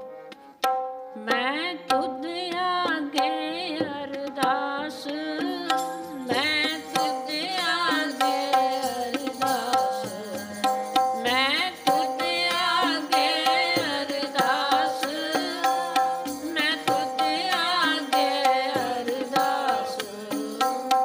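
Sikh keertan: harmonium chords and tabla accompanying a woman's voice singing a Gurbani shabad. The voice enters about a second in after a brief dip.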